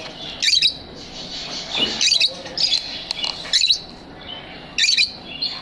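Lovebirds calling: loud, shrill chirps about every second or so, with softer twittering chatter in between.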